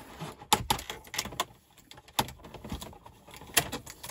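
Clear plastic blister tray clicking and crackling as small plastic accessory hands are worked out of it: a scattered string of sharp clicks with quieter stretches between.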